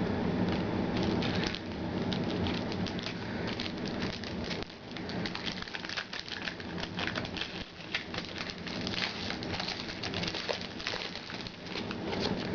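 Trading cards and their packaging being handled: a dense, rapid crackling and rustling of card stock and wrapper as packs are opened and cards flipped through, over a steady low hum.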